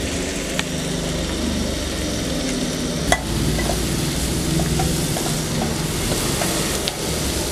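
Soya chunks frying in oil in a non-stick kadai, stirred with a metal spatula that scrapes and taps against the pan, with one sharp knock about three seconds in.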